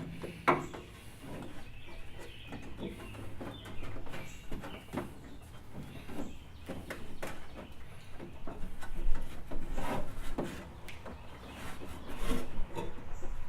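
Hands pressing and rubbing a piece of peel-and-stick sound-deadening mat onto a car door's outer sheet-metal skin, working it in behind the crash bar inside the door cavity. Irregular rubbing with scattered knocks against the metal, a few louder ones near the middle and the end.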